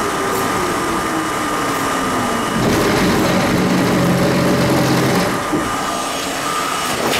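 R32 subway car's traction motors whining down steadily in pitch as the train slows along a station platform. About two and a half seconds in, a louder steady mechanical hum with a rush of air noise starts, and it stops after about two and a half seconds as the train comes to a stop.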